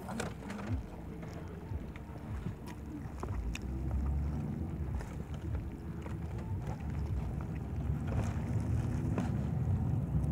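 Steady low rumble of a car heard from inside the cabin, with a few light clicks and rustles.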